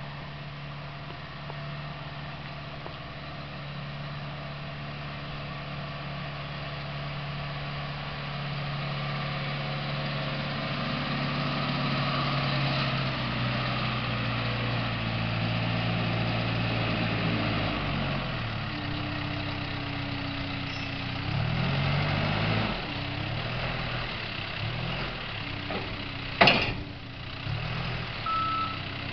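Backhoe loader's diesel engine running as the machine drives and works, its note steady at first, then dropping and shifting up and down under changing load. A single sharp bang comes near the end, and just after it the reversing alarm starts beeping.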